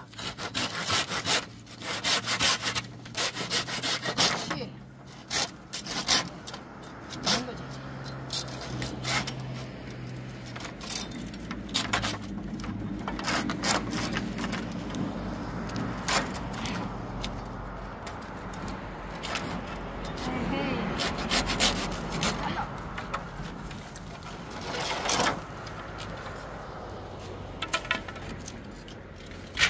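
Hand pruning saw cutting through bamboo poles in runs of quick back-and-forth strokes.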